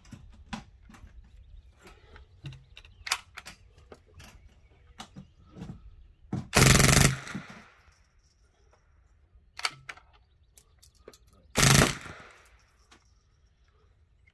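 Ruger 10/22 rifle converted to open-bolt full-auto firing .22 LR in two short bursts about five seconds apart, each lasting about half a second, with the shots run together. Fainter sharp clicks and pops are scattered in between.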